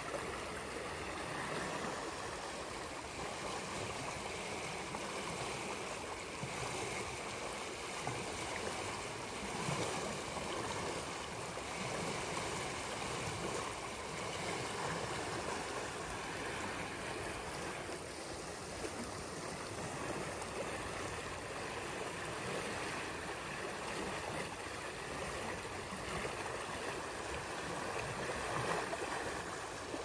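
Swift, swollen river rushing past the bank: a steady wash of flowing water.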